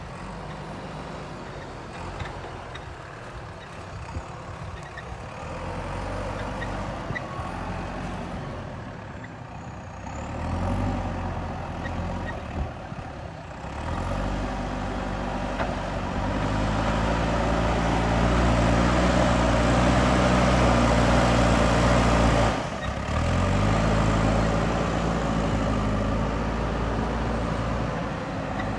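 Diesel engine of a JCB 3DX backhoe loader working: it revs up about a third of the way in and again near the middle, holds high revs under load for several seconds, drops off for a moment, then picks up again.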